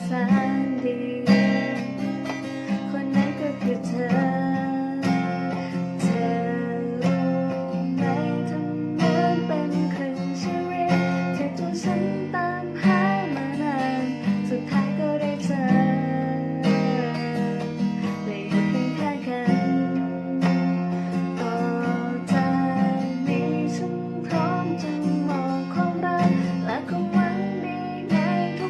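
Strummed acoustic guitar accompanying a woman singing a slow Thai ballad.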